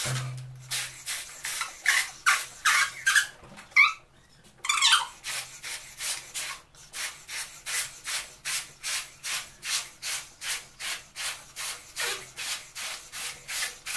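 A large latex balloon being blown up by mouth: quick, even puffs of breath forced into its neck, about two or three a second, with a short pause and a deep breath about four seconds in. A brief low hum at the very start.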